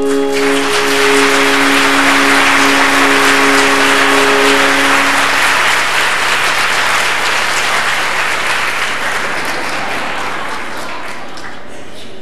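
Audience applauding, loudest at first and dying away toward the end. The last chord of the song's accompaniment is held under the applause for the first few seconds.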